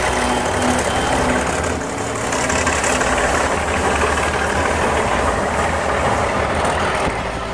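Diesel-electric freight locomotives, NSW 48 class units, running past at close range, followed near the end by hopper wagons rolling by on the rails. A steady, loud mix of engine sound and wheel-on-rail noise.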